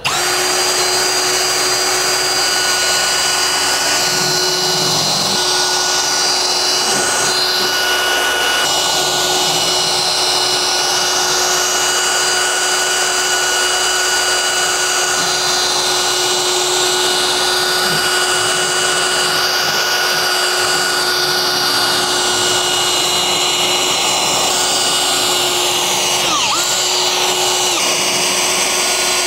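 Cordless drill spinning a round bristle drill brush against a cleaner-soaked carpet floor mat: a steady motor hum with the brush scrubbing the fibres. The motor pitch dips briefly near the end as the brush is pressed in.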